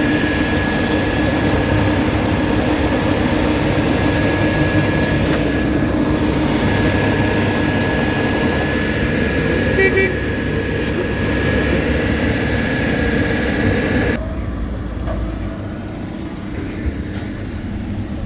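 Heavy road-paving machinery running steadily, its diesel engine and a high steady whine loud throughout. A short horn toot about ten seconds in; about fourteen seconds in the louder, higher noise cuts off suddenly, leaving a lower rumble.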